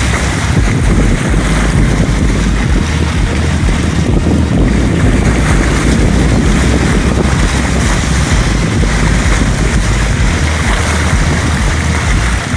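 Steady rush of wind on the microphone and choppy sea water beside a boat, over a constant low rumble.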